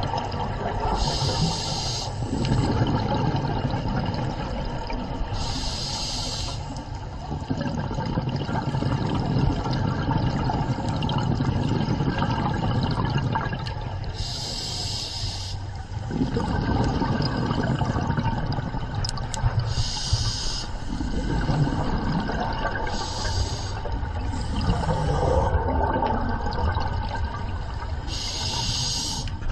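Scuba diver breathing through a regulator underwater: a high hiss about one second long, heard about seven times at uneven gaps of a few seconds, over a continuous low bubbling rumble of exhaled air.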